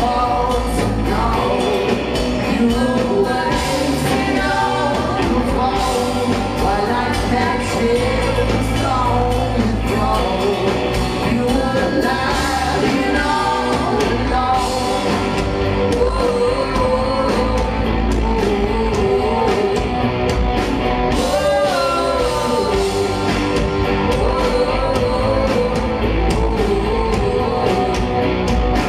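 Live rock band playing a song, with a man singing over electric guitars, bass and drums.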